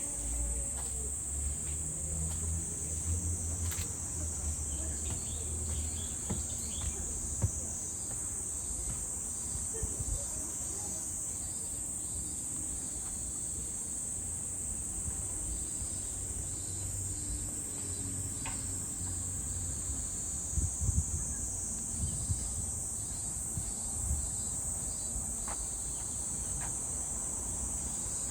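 A chorus of insects keeps up a steady, high-pitched drone, with a faster pulsing insect call underneath it. A few short knocks come through about seven seconds in and again about twenty seconds in.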